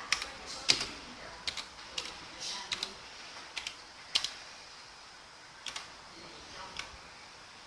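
Keys being pressed on an Obins Anne Pro 60% mechanical keyboard with Gateron switches: about a dozen sharp clicks at an uneven pace, some in quick pairs, with a longer pause about two-thirds of the way through.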